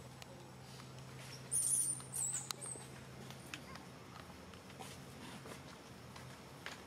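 High, thin squeaks of a baby macaque: a short run of wavering, chirp-like calls starting about one and a half seconds in and lasting about a second and a half.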